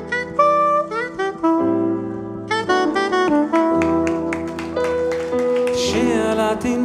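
Live jazz-style instrumental intro: a soprano saxophone plays a flowing melody over piano chords and a sustained double bass line.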